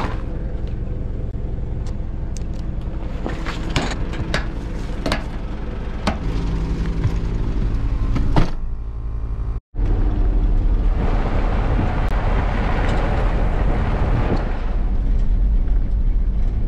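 Four-wheel drive's engine running, heard from inside the vehicle, with scattered knocks and clicks of gear and doors in the first half. After a cut, the engine and the tyre and body rattle of driving along a sandy dirt track, louder than at the start.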